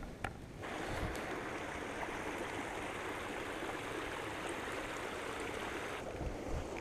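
Shallow creek running over stones: a steady rush of water that comes in abruptly about half a second in and eases near the end. A single sharp click sounds just before it.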